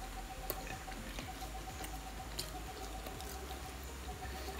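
Quiet chewing of submarine sandwiches by two people: faint scattered mouth clicks and smacks over a low steady hum.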